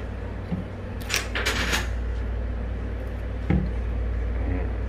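Handling sounds from seasoning a balut with vinegar: a short cluster of crackly noises about a second in and a single knock past the middle, over a steady low hum.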